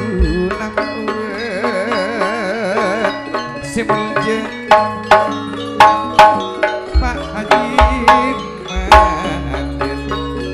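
Madurese gamelan music: metallophones struck in quick, even melodic strokes over hand-drum beats. A wavering held melody line sounds in the first few seconds, and deep low strokes join in the second half.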